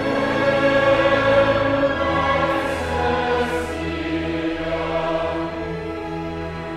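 A large choir singing sustained, slow-moving chords, accompanied by a string orchestra. Two brief 's' consonants from the choir hiss near the middle.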